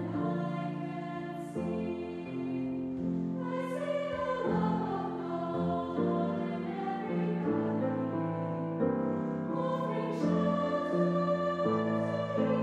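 Church choir singing a slow hymn in several voice parts, with piano accompaniment. Sharp 's' sounds from the singers come through now and then.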